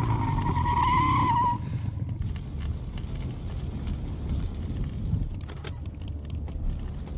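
Motorcycle tyre squealing in a skid for about a second and a half, then a lower rumble of engine and fire, with a few sharp metallic clicks near the end as a lever-action shotgun is worked.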